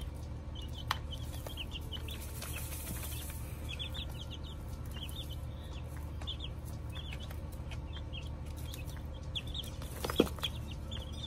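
Young chicks peeping in quick runs of short, high cheeps over a low steady hum. A single sharp knock comes about ten seconds in.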